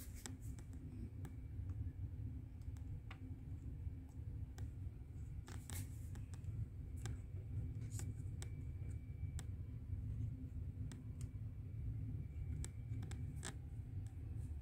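Faint handling sounds of a miniature model ship being held and turned by hand: scattered light clicks, taps and scratches over a low steady hum.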